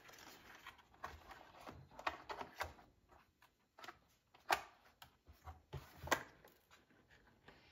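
Light plastic clicks and taps as the hard body of a 1/18-scale Traxxas TRX4M RC truck is fitted onto its chassis and the truck is handled on the workbench. Two sharper clicks come about four and a half and six seconds in.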